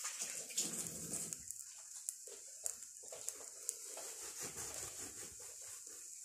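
Faint frying sizzle from butter under a crumpet in a hot pan: a steady high hiss scattered with small crackles and pops.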